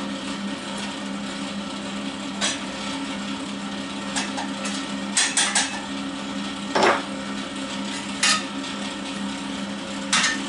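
Steel box-section and flat bar being handled and set against a steel frame: a series of short, sharp metal clinks and knocks, including a quick run of three about five seconds in and the loudest about seven seconds in, over a steady machine hum.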